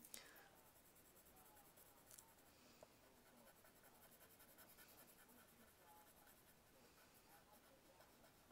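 Faint scratching of a watercolour pencil colouring on watercolour paper, with a small click about two seconds in.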